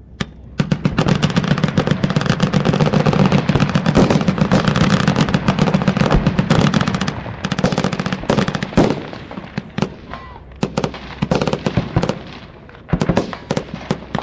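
Massed gunfire from many weapons firing at once: a single bang, then dense overlapping bursts of automatic fire for about six seconds, thinning in the second half into scattered separate bursts.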